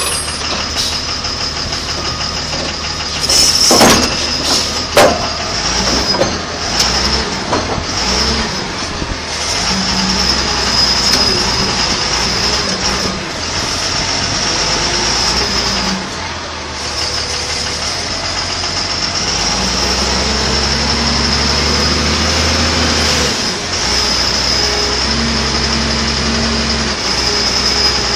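Heavy diesel equipment engine running, its speed stepping up and down several times as it works. Two loud bangs come about four and five seconds in.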